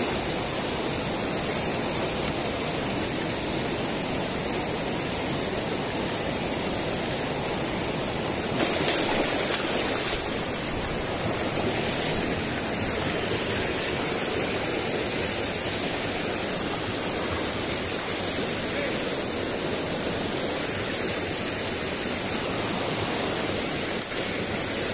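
Mountain creek rushing over boulders and small cascades, a steady rush of water that swells briefly for about a second and a half near the middle.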